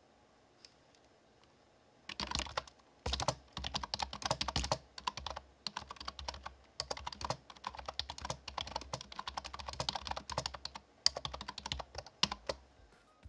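Typing on a non-mechanical Insignia USB keyboard: rapid runs of soft key clicks with brief pauses, starting about two seconds in.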